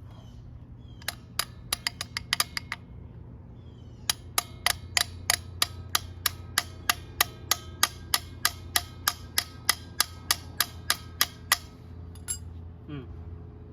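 A quick cluster of sharp taps, then a steady run of them at about three a second for some seven seconds, over a low steady hum.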